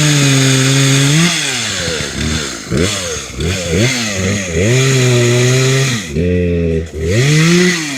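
Gasoline chainsaw running hard, its engine pitch rising and falling again and again as the throttle is squeezed and eased, as when cutting through wood.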